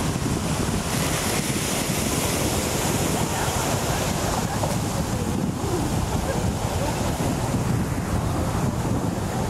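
Ocean surf and wind buffeting the microphone, a steady rushing noise without pause.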